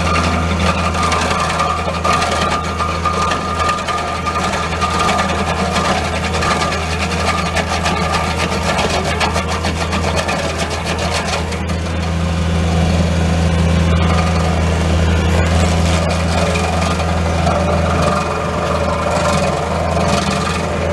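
Bobcat T630 track loader's diesel engine running steadily, a little louder from about twelve seconds in.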